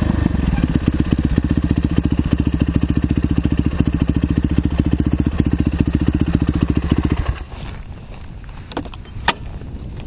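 2009 Yamaha YZ450F's 450 cc single-cylinder four-stroke engine running steadily at low revs, then shut off about seven seconds in. A couple of sharp clicks follow near the end.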